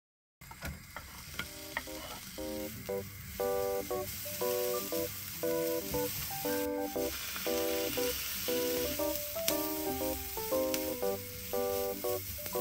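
Sliced brown onion frying in melted butter in a non-stick pan, sizzling steadily as a silicone spatula stirs it, with a few sharp clicks. Light background music with a steady beat plays over it.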